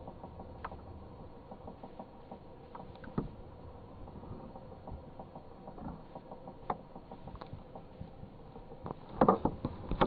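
Handling noise from a handheld phone: scattered soft taps and rustles, with a burst of louder knocks about nine seconds in.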